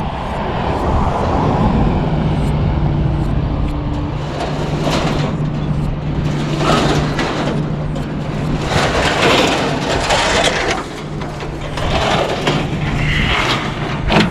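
Truck engine idling with a steady low hum, while pieces of scrap are handled and dragged, making repeated bursts of scraping and clattering from about four seconds in.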